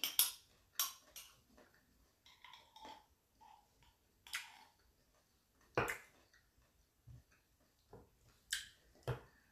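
A small plastic spoon scraping and clicking against a glass jar of bagoong (shrimp paste) as it is scooped out: scattered light clicks and short scrapes, with one sharper click about six seconds in.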